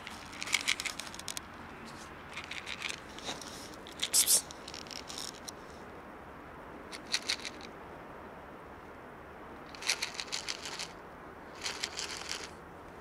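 A plastic food container being handled: short clusters of plastic crinkling and rattling, repeated about every two seconds, the loudest about four seconds in.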